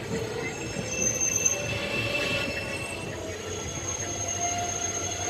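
Siddhaganga Intercity Express wheels squealing thinly on the rails, several steady high-pitched tones over the continuous rumble of the running coaches.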